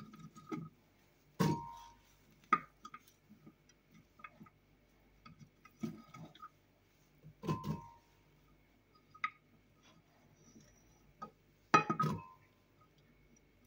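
Chunks of raw beetroot dropped by hand into a glass blender jug: scattered soft knocks and clicks, with three louder glass clinks that ring briefly, about a second and a half in, midway and near the end.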